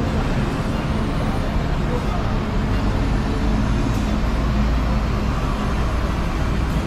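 Steady bus-terminal street ambience: a low traffic rumble and hiss, with people's voices in the background.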